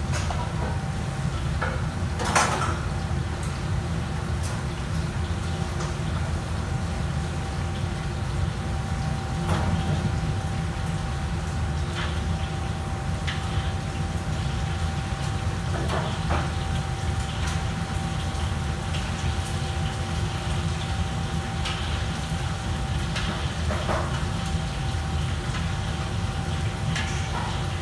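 Kitchen ambience: a steady low hum with a faint steady whine over it, broken by scattered knocks and clinks, the loudest about two seconds in.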